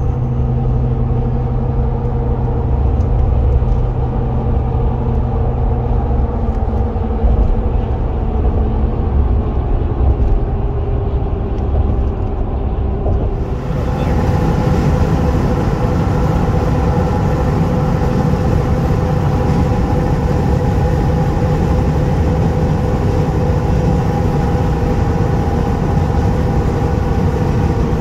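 Steady engine and tyre drone heard inside a vehicle's cabin cruising at highway speed. About halfway through it abruptly turns brighter and hissier.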